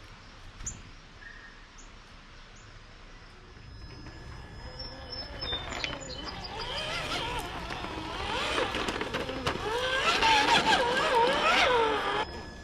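Small electric motor and gear drive of an RC scale tow truck whining, its pitch wavering up and down with the throttle. It starts a few seconds in, grows louder, and cuts off suddenly near the end.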